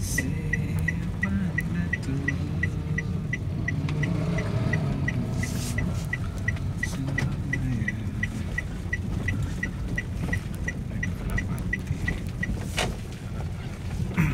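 Railway level-crossing warning bell dinging about three times a second over the low rumble of the car and surrounding motorbikes; the bell stops near the end, just before a single sharp knock.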